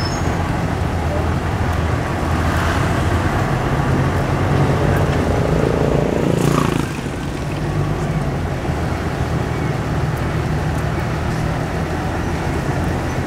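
Car engine running with road and traffic noise, heard from inside the cabin while driving slowly through town. A louder rushing noise swells about five seconds in and drops away at about seven seconds.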